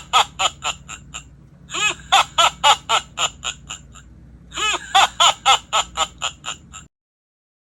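Crayon Shin-chan character alarm clock playing a recorded cartoon-voice laugh, a run of about ten quick "ha"s that fades out, repeated three times before it cuts off suddenly near the end.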